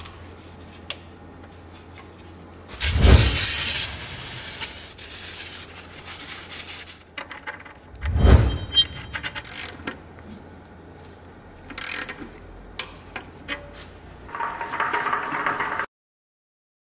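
Hand tools at work on the underside of a van: tightening the oil filter housing with a torque wrench, then the oil sump drain plug. Two loud knocks, a few sharp metallic clinks and a stretch of scraping near the end, which then cuts off suddenly.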